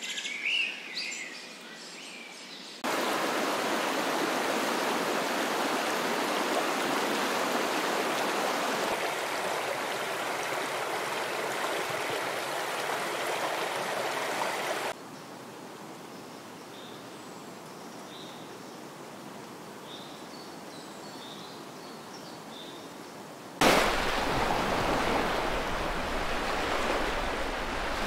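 Nature ambience in changing sections: a few bird chirps at the start, then a steady rush of flowing water for about twelve seconds, then a quieter stretch with scattered faint bird chirps. Near the end, waves breaking on a shore cut in suddenly and loudly.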